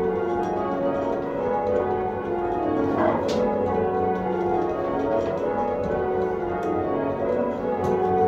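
Church tower bells being change-rung, heard from the ringing chamber below: the bells strike one after another with their tones overlapping and ringing on.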